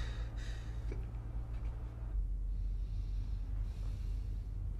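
A steady low rumble of room tone with faint breathing over it, and a short breath in the first half-second.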